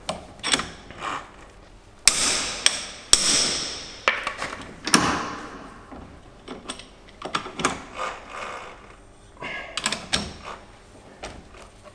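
Hammer blows on steel tools fitted to a moped engine's magneto rotor, struck to break the rotor free: a few lighter knocks, then four loud ringing metal strikes about two to five seconds in, followed by lighter clicks and knocks of tool handling.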